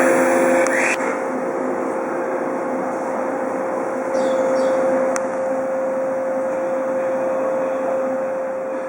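Steady hum and hiss of an electric train's running or auxiliary equipment, with one constant mid-pitched tone. A couple of short bird chirps come about four seconds in.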